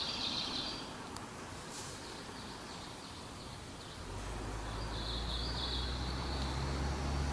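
Outdoor ambience with a high, even trill twice, at the start and about two-thirds of the way in, and a low engine rumble that sets in about halfway and grows steadily louder as a vehicle approaches.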